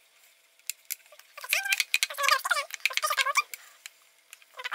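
Damp cloth rubbed over the plastic of an intercom handset, squeaking in a run of high, wavering squeaks for about two seconds, starting about a second and a half in.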